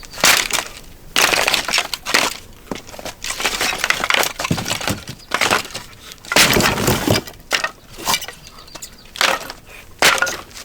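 Dry branches being snapped and crushed underfoot for kindling: about a dozen sharp, irregular cracking crunches.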